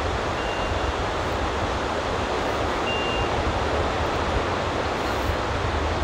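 Steady wind noise on the microphone, a low rumble, over the even hiss of surf on a sandy beach.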